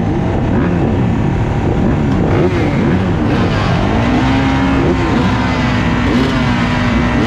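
A line of motocross bikes revving at the starting gate, with many engines rising and falling in pitch over one another. From about halfway through, one engine is held at steady high revs, as the riders wait for the gate to drop.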